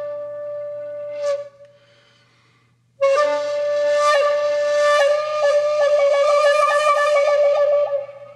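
Solo flute music: a long held note fades out about a second in, and after a short pause a new held note begins, breaking into a quick fluttering ornament in its second half before stopping near the end.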